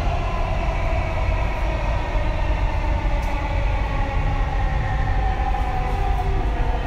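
Dubai Metro train running through a tunnel, heard from inside the carriage: a steady low rumble with a motor whine that falls slightly in pitch in the second half as the train slows for the next station.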